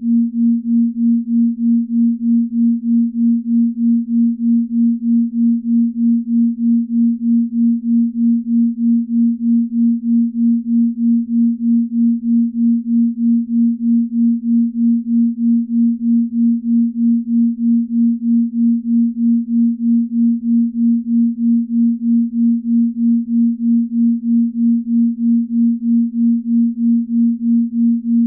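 A binaural beat: a pure low tone of about 240 Hz, held steady, its loudness pulsing evenly about two and a half times a second where the two slightly different ear tones beat against each other, a slow rate of the kind used for deep sleep.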